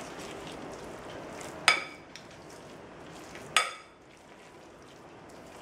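Metal spoon stirring a thick vegetable batter in a glass bowl, a soft steady scraping, with the spoon ringing against the glass twice, about two seconds apart.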